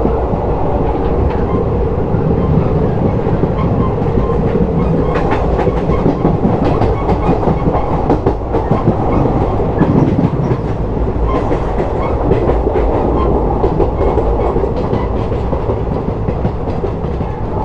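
Passenger train running along the track: a steady rumble of wheels on rail, with a run of rapid clicks and clacks from rail joints in the middle of the stretch.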